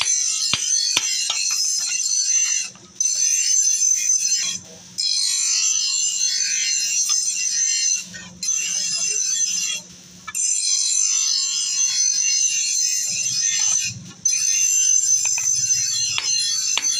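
Background music with a bright, high melody that breaks off briefly every few seconds, over a steady low hum. Hammer blows on a hot steel chaff cutter blade on an anvil ring out in the first second or so and again near the end.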